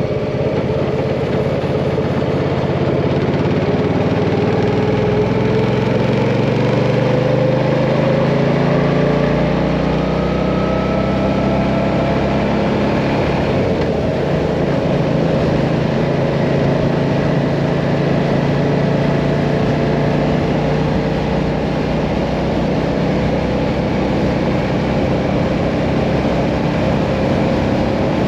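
Mirage 650 motorcycle engine pulling up through the revs for the first several seconds, then running at a steady cruising speed, with wind and road noise.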